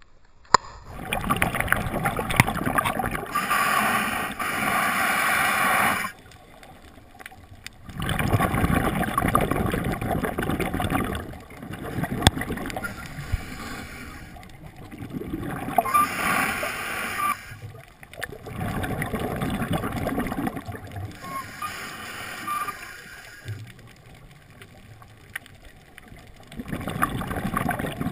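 Scuba diver breathing underwater through a regulator: spells of exhaled bubbles gurgling and hissing, every few seconds, with quieter spells between them.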